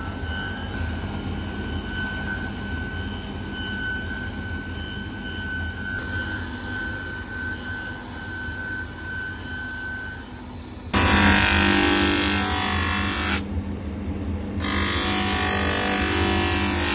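A cobbler's finishing machine runs with a steady motor hum while the leather sole's edge is trimmed on its spinning edge cutter. About eleven seconds in, a loud even sanding noise starts as the sole is worked on the machine's sanding wheel. It comes twice, with a break of about a second between.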